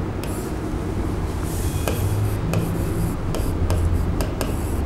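Marker pen scratching and squeaking across a writing board as words are written out in short irregular strokes, over a steady low hum.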